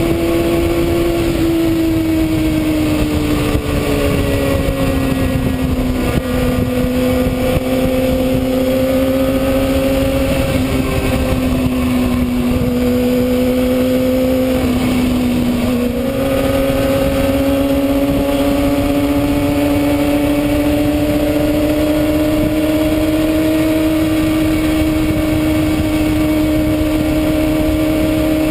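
Kawasaki ZX-6R inline-four engine running at steady revs, its note sinking slowly, dipping briefly about fifteen seconds in, then climbing gently again, over a constant rush of noise.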